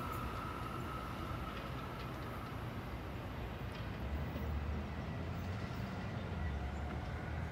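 Arrow electric multiple-unit train running away from the station, faint with distance. A steady high whine fades out over the first few seconds, and a low rumble comes up in the second half.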